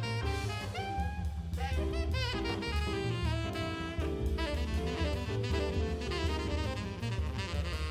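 Instrumental jazz background music: a saxophone lead plays a wavering melody with vibrato over a steady bass line and drums.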